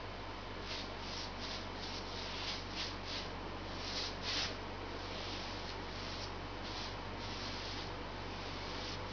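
Paintbrush stroking paint onto a wooden window surround: a run of short, soft brushing rubs, about two a second, over a steady low hum.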